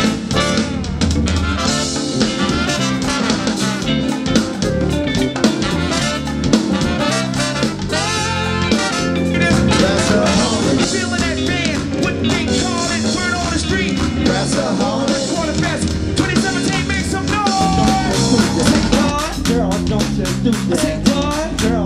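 Live brass band playing up-tempo go-go brass funk: trombone and horns over a drum kit and percussion.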